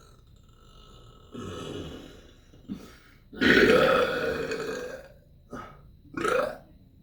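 A person burping several times in a row. A medium burp comes about a second in, then the loudest and longest belch, lasting nearly two seconds, in the middle, followed by shorter burps near the end.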